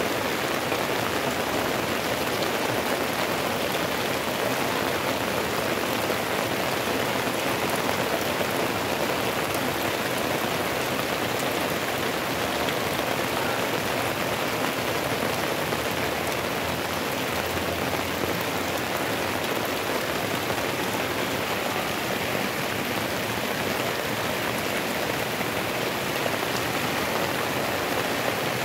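Heavy rain falling steadily, a dense even hiss of downpour.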